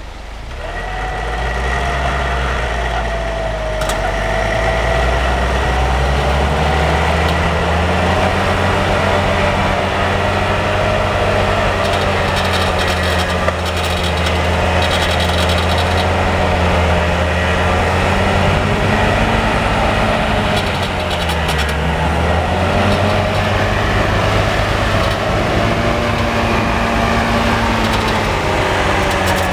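UAZ off-road vehicle's engine running steadily under load while it winches itself through deep snow, with a steady whine over the engine note that wavers slightly in pitch.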